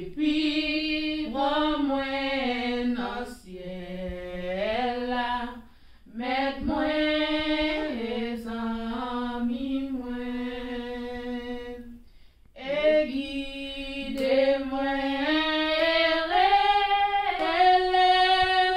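Two women singing a worship song of thanks to God a cappella, with long held notes in phrases broken by short pauses about six and twelve seconds in.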